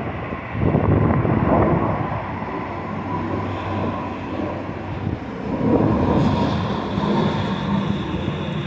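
Twin-engine narrow-body jet airliner climbing out overhead, its engines a broad rumble with a steady whine; a second, higher whine joins about six seconds in.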